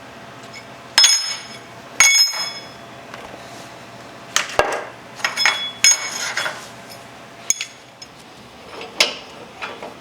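Steel pieces and hand tools clinking and clanking on metal: two sharp ringing clinks about a second apart early on, a run of clanks and scrapes in the middle, and another sharp clink near the end.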